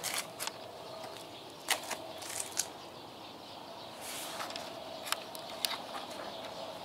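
Scattered soft footsteps and scuffs on concrete, irregular light clicks every half second to second or so, over a faint steady hum.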